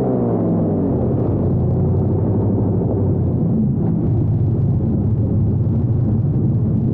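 Airboat engine and propeller running under way, the engine note dropping in pitch over the first second as the throttle eases, then settling into a loud, steady drone.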